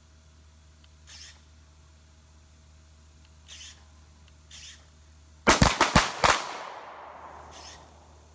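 A quick ragged volley of about six pistol shots, several shooters each firing a double tap at once, packed into under a second about five and a half seconds in, followed by an echo that dies away over a second or so.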